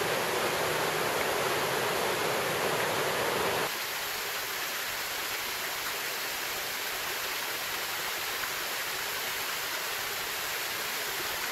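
Mountain creek water rushing steadily over rocks and small cascades, running full with early-summer snowmelt. About four seconds in the sound changes to a slightly quieter, thinner rush of water falling down a rocky cascade.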